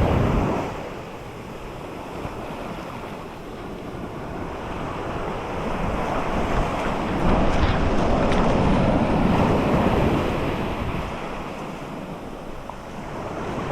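A big ocean wave breaking and rushing up the shore. The surf noise swells over a few seconds, holds loud, then eases off, with wind buffeting the microphone throughout.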